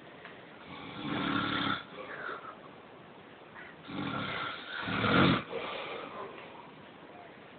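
A man snoring in his sleep. One snore comes about a second in, and a longer, louder one comes around four to five seconds in, with quieter breathing between them.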